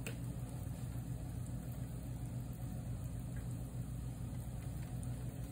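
A steady low rumble of an engine idling in the background, with a faint even hiss over it.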